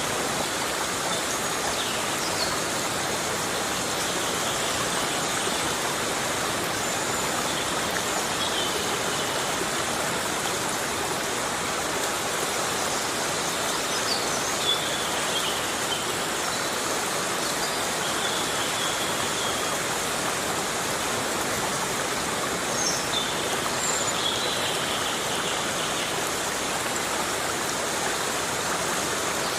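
Heavy rain falling steadily on rainforest foliage, a dense even hiss. A few faint, short high-pitched calls come through it now and then.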